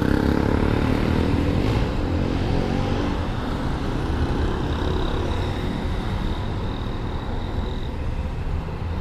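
Honda SH150i scooter's single-cylinder engine running at road speed in city traffic, with steady road and wind noise. A faint high whine holds for a few seconds in the middle.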